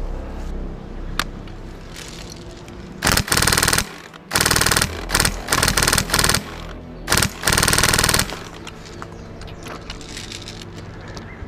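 Airsoft gun firing several loud full-auto bursts of rapid shots, starting about three seconds in and stopping a little after eight seconds.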